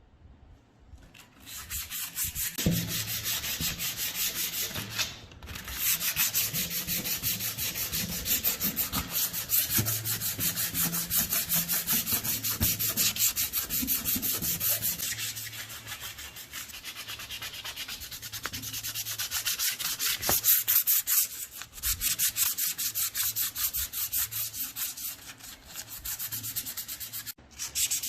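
Continuous fast abrasive scrubbing of a part, steady rapid strokes, with brief breaks about five seconds in and near the end.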